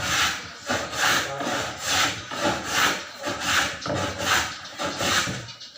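Wood being worked by hand with quick back-and-forth rubbing strokes, a little over two a second, dying away near the end.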